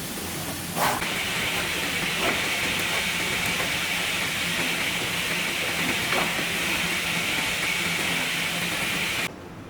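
Car-film CNC cutting machine running with a steady, loud hiss and a few faint clicks. The hiss starts with a click about a second in and cuts off abruptly near the end.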